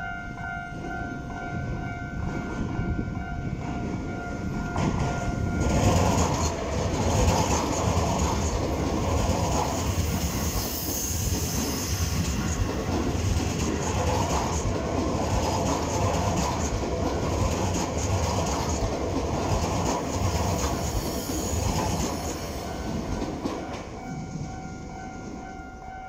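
Level-crossing warning bell ringing steadily. About five seconds in, a Keisei AE-series Skyliner express train passes at speed, its loud rumbling wheel and running noise drowning out the bell for about eighteen seconds. The bell is heard again near the end as the train clears.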